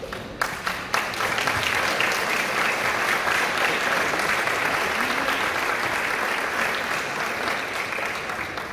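Audience applauding. A few scattered claps swell within the first second or so into steady applause, which eases off near the end.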